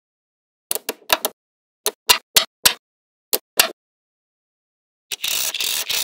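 Small magnetic balls snapping together: about ten sharp clicks in pairs and small groups, then, about five seconds in, a dense rattling scrape of many balls.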